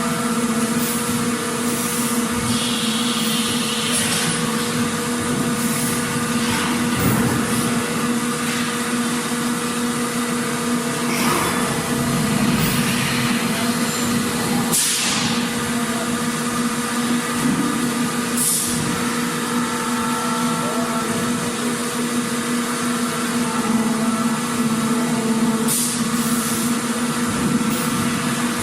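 Factory machinery running with a steady, droning hum, with short hisses every few seconds.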